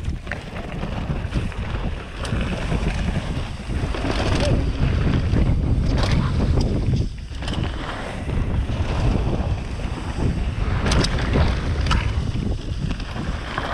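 Wind rushing over the microphone of a camera riding along on a mountain bike descending a rocky downhill trail, with scattered rattles and knocks from the bike going over stones.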